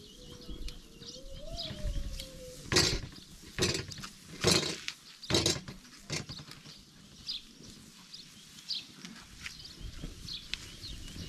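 Metal spatula scraping on a hot domed iron griddle as acorn flatbread is worked, four short rasping strokes about three to five seconds in. Small birds chirp throughout.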